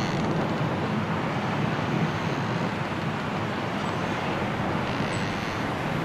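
Strong storm wind blowing steadily through bare trees during a snowstorm, an unbroken rushing noise.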